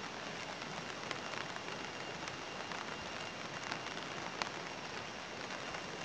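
Steady rushing water noise with scattered faint ticks.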